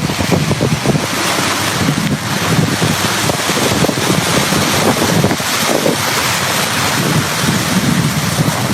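Loud steady rush of flooding water, with wind buffeting the microphone in irregular low gusts.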